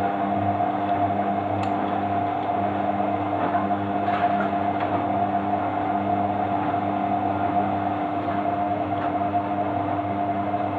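Washing machine on its final spin: a steady motor whine over a low hum from the spinning drum.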